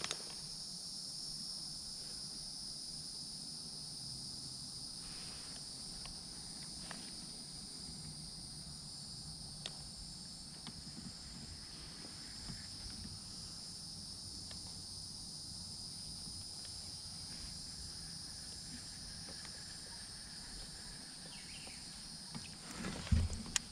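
Steady, high-pitched chorus of insects droning without a break, with a few faint clicks along the way.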